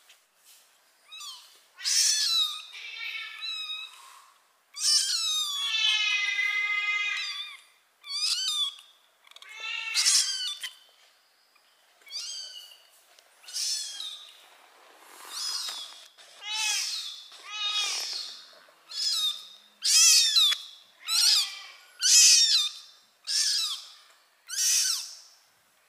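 Newborn kitten mewing loudly and over and over, high thin cries about once a second, with one call held for over two seconds about five seconds in. These are a lone kitten's cries for its mother.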